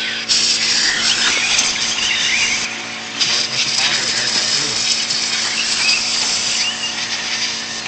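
Radio-controlled off-road cars racing on a dirt track, their motors whining in surges that rise and fall for a few seconds at a time as they accelerate and pass.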